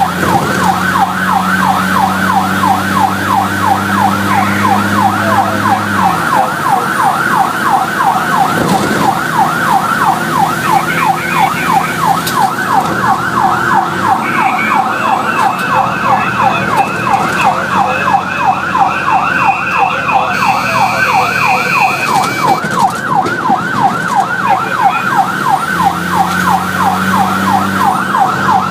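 Fire engine's siren in a fast yelp, rapid rising sweeps about three a second, heard from the cab of the responding fire truck. A low steady hum runs under it for the first few seconds and again near the end.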